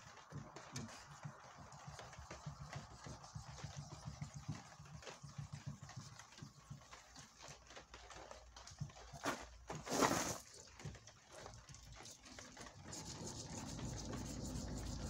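Hand sanding of the primer-filler on a Peugeot 203's front wing: quick, even scratching strokes of sandpaper against the panel. About ten seconds in there is a louder short rush of noise, and a low rumble builds over the last couple of seconds.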